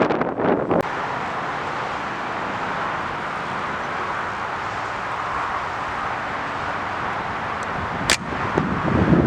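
Wind on the camera microphone: gusty buffeting for the first second, then a steady rushing noise, with one sharp click about eight seconds in and gusts again near the end.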